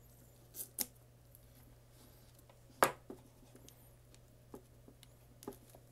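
Scissors snipping the clear plastic shrink wrap on a metal trading-card tin, heard as a few short sharp clicks and snips with the loudest about three seconds in, then fingers picking at the plastic wrap.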